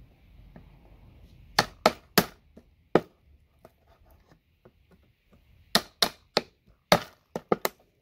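Claw hammer striking the handle of a chisel held against RJ45 ethernet connectors, driving out their gold-plated pins. Three quick strikes and a fourth come about one and a half seconds in, and a faster run of about seven sharp strikes comes in the last two and a half seconds.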